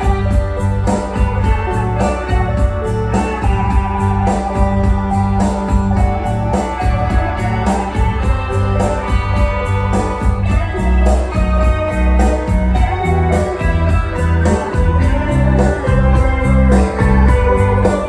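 Instrumental passage of a song: guitar and organ over a steady drum beat.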